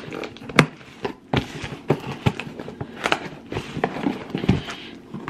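Scissors cutting the packing tape on a cardboard shipping box, then the cardboard flaps being pulled open. Irregular clicks, knocks and rustling, with one sharp snap about half a second in.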